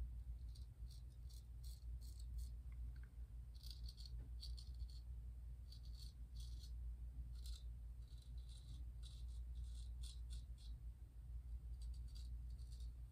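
Gold Dollar 208 straight razor scraping through lathered stubble on the second pass: a quick, irregular series of short, crisp rasps, one per stroke, over a steady low hum.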